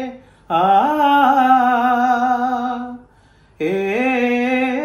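A man singing a Malayalam folk song unaccompanied: two long held notes without clear words, each sliding up in pitch at its start. The first runs from about half a second in to about three seconds in; after a short breath the second begins and is still held at the end.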